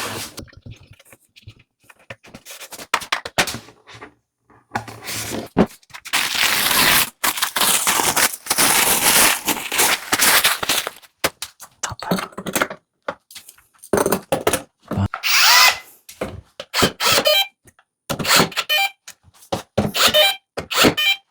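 Power drill-driver running in repeated bursts: one long run of about six seconds, then many short runs, the motor pitch rising and falling with the trigger.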